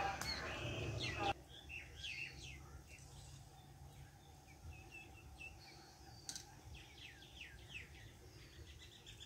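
Small birds chirping faintly: many short, quick calls, with a sharp click about six seconds in.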